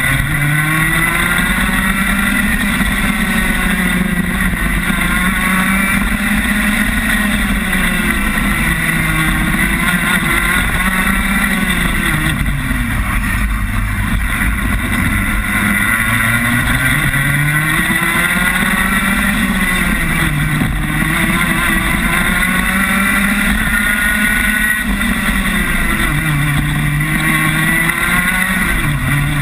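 Rotax Max 125cc two-stroke kart engine heard close up from onboard at racing speed, its revs climbing and then falling away again and again every few seconds as the kart accelerates and slows through the circuit.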